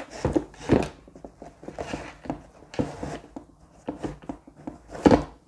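Laces of a tennis shoe being pulled loose through the eyelets by hand, rustling and rubbing as the shoe is handled. Irregular soft knocks come through it, with a louder one about five seconds in.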